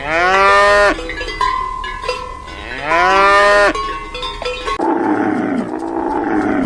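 A cow mooing twice, each moo swooping up and then holding, with cowbells clanking between the calls. About five seconds in this gives way to a rough, pulsing animal growl.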